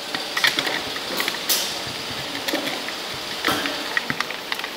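Small screwdriver turning a screw into the plastic housing of an SHR/IPL handpiece: scattered sharp clicks and scrapes of metal on plastic over a steady background hiss.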